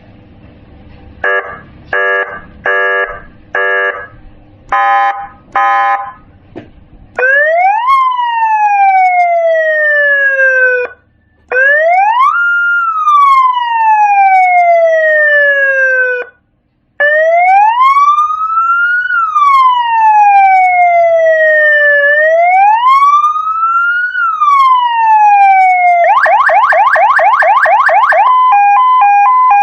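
CJB200 nine-tone electronic siren module sounding through a 300-watt round horn speaker, cycling through its tones. First come a run of short beeps. Then long wails sweep up and down, a rapid yelp follows near the end, and it closes on a two-note hi-lo tone.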